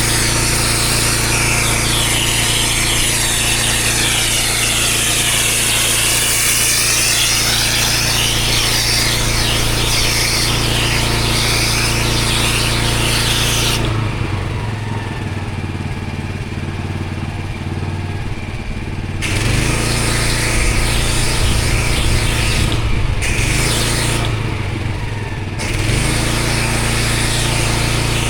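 Engine-driven pressure washer running steadily while its high-pressure water jet hisses across block paving. The spray cuts out for about five seconds midway, leaving the engine running, then starts again, with two short breaks near the end.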